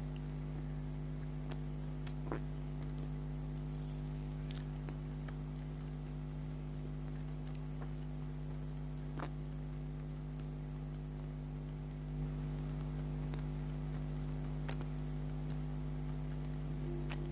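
Close-miked eating sounds of a soft, syrupy petha sweet: faint wet squishing and a few sharp mouth clicks spread through, over a steady electrical hum.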